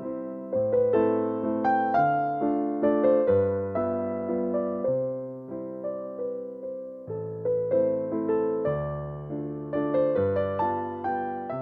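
Background music: a gentle piano melody of single struck notes over slow bass notes.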